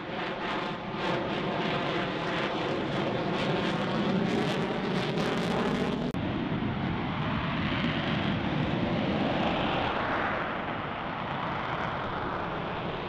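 F-35B Lightning II's single jet engine running at high power as the jet passes overhead, a steady whine with a layered tone and crackle. About six seconds in, the sound changes abruptly to a rougher, noisier jet sound while the F-35B hovers on its lift fan.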